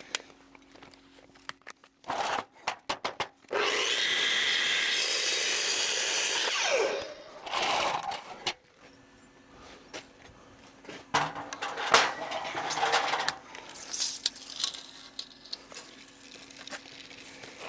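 Electric drop saw cutting through a timber post: the motor runs loud and steady for about three seconds, then winds down with a falling whine. Clicks come before the cut, and a short burst and scattered knocks of wood being handled follow it.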